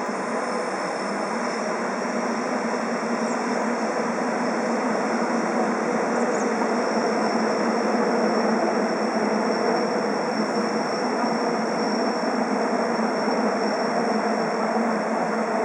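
A train running, with a steady rolling rumble and a thin, steady high whine, growing slightly louder over the stretch.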